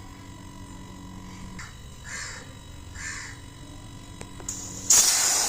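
Refrigerator compressor running with a steady low hum while a crow caws twice in the background. A loud hiss starts near the end.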